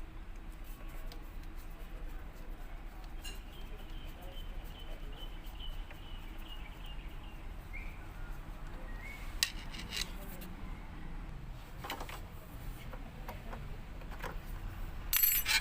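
A few light clicks and metallic clinks over a faint steady hiss, spaced several seconds apart, with a louder cluster of clicks near the end.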